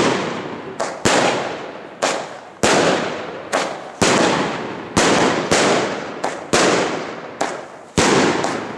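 A 61-shot Allevi firework battery with 25–30 mm tubes firing shot after shot, its shells launching and bursting. Sharp bangs come about one to two a second, each trailing off before the next.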